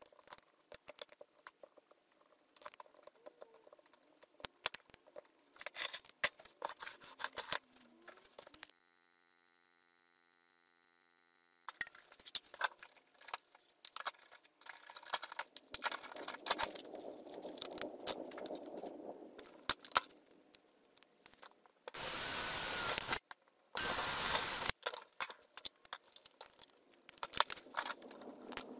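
Metal pliers and cutters clinking and clattering against each other and the wooden rack as they are handled and hung, in a string of short clicks and knocks. About two-thirds of the way in come two loud, steady bursts of noise, each about a second long.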